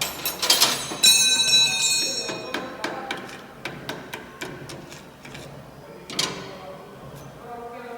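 Metal striking metal: two sharp blows with a ringing tone that fades over a second or so, then a run of lighter taps and clicks and another blow about six seconds in.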